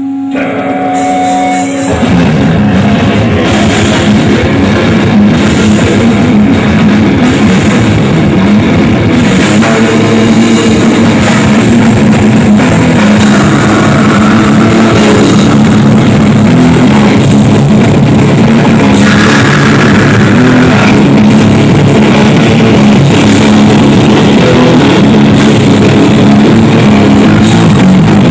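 Death metal band playing live, with heavily distorted guitars, bass and fast drums, coming in at full volume about two seconds in after a brief held tone.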